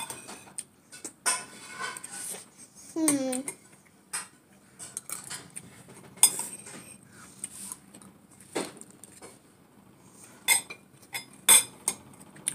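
Cutlery clinking and scraping against a plate or bowl while eating fried rice, in scattered sharp taps, with a short vocal sound about three seconds in.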